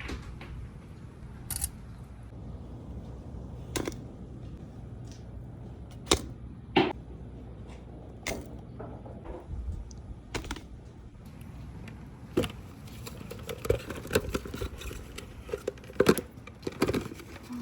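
Balls rolling down a toy marble run, giving scattered sharp clicks and knocks against the track every second or two over a low steady hum. The clicking grows busier and louder over the last few seconds as more balls clatter through.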